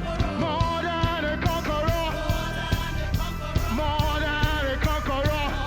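Live gospel praise music: singers over a band with a steady drum beat and bass.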